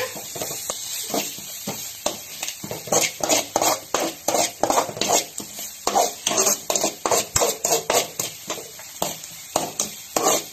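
Steel ladle scraping and stirring in a metal wok in quick strokes, about three a second, as onions, green chillies and spice powders fry in oil.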